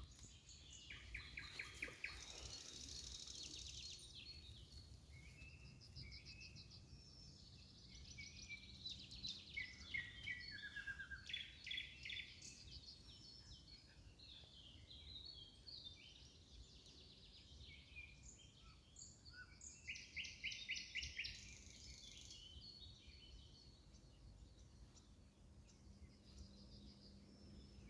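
Nightingales singing: phrases of rapid repeated notes and trills with short pauses between them, loudest near the start, around ten seconds in and around twenty seconds in, over a faint low rumble.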